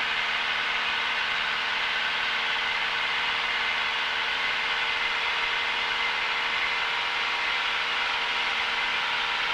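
Cessna 172's single piston engine and propeller running with a steady, unchanging drone, heard from inside the cabin during the takeoff and climb-out.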